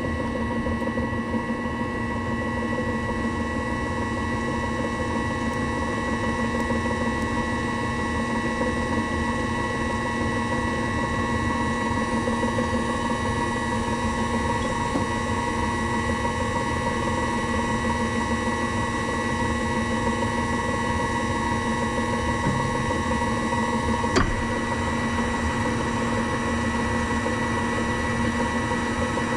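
Workshop machine-tool electric motor running steadily with a constant hum and whine. A single sharp click sounds once, late on.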